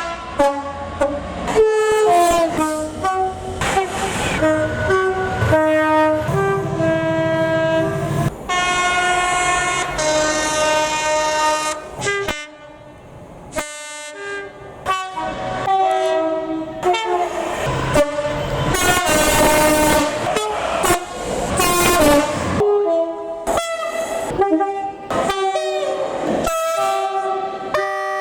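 Diesel locomotive horn played as a long tuneful salute: a run of short notes at many different pitches, pausing briefly twice, with the locomotive's engine rumbling underneath for much of it.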